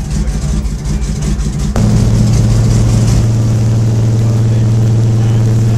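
A light aircraft's piston engine and propeller running, heard inside the cockpit. About two seconds in the engine note changes abruptly to a louder, steadier tone.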